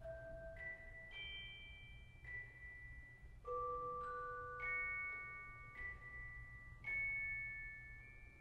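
Soundtrack music: a slow, sparse melody of single struck bell-like notes in the manner of a glockenspiel, each ringing on and overlapping the next, about ten notes in all, over a faint low hum.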